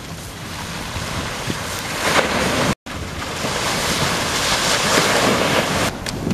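Ocean surf breaking and washing up the beach, mixed with wind buffeting the microphone. The sound drops out for a moment just under three seconds in.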